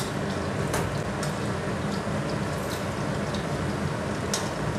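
Fish cakes frying in shallow oil in a stainless steel wok, a steady sizzle, with a few light clicks of a metal spatula against the wok.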